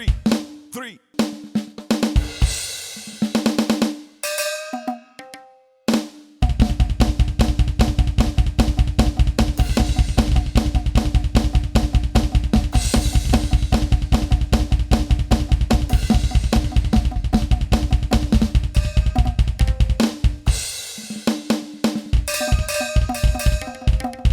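Yamaha DTX700K electronic drum kit played through its sound module on a pitched, unusual kit voice. Scattered hits with ringing tones give way about six seconds in to a fast, steady run of deep hits, which breaks off for a moment near the end and then resumes.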